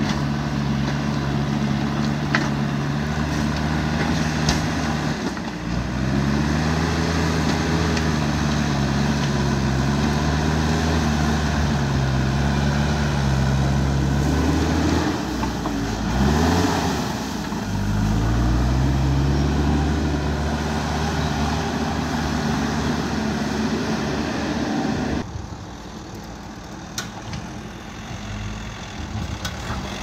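JCB backhoe loader's diesel engine working under load as the front bucket pushes and lifts dirt; the engine speed rises and falls several times, with a quick dip and rev about halfway through. About 25 seconds in, the sound drops suddenly to a quieter vehicle engine.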